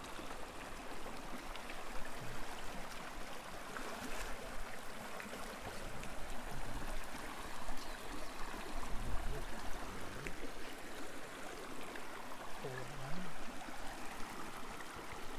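Shallow rocky mountain river running: a steady rush of water over stones in low, fast riffles.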